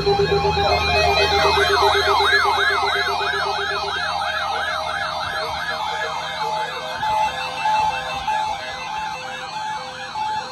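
Electronic siren in a fast yelp, its pitch sweeping up and down about three times a second, with steady tones and a low hum beneath it. One steady tone cuts off about four seconds in, and the siren slowly fades toward the end.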